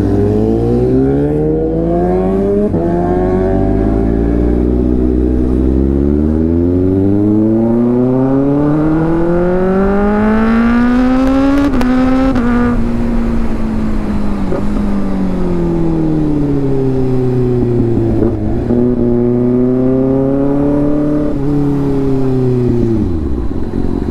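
Kawasaki Ninja ZX-6R inline-four, very loud through an aftermarket exhaust run with the dB killer removed, accelerating hard. Revs climb in several quick steps through quickshifter upshifts in the first few seconds, then in one long pull to high revs. There is a brief break about halfway, then the revs fall as the bike slows, rise briefly once more, and drop again near the end.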